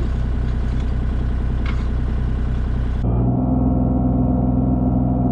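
Skid steer engine running steadily. About three seconds in, the sound changes abruptly to a duller, steadier hum with the high end gone.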